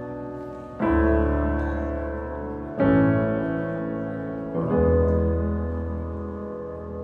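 Slow solo piano music: full chords struck about every two seconds, each left to ring and slowly fade.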